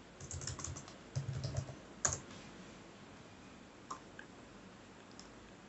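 Faint typing on a computer keyboard: a quick run of keystrokes, then one louder key press about two seconds in as the git push command is entered. A few scattered faint clicks follow.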